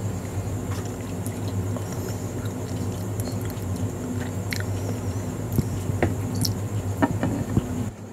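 A person chewing a mouthful of burger with the mouth closed, with scattered wet mouth clicks and smacks, mostly in the second half. A steady low hum lies underneath and cuts off suddenly near the end.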